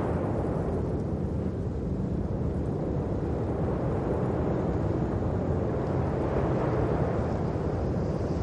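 Steady low rumble, with most of its weight in the deep range and no distinct events.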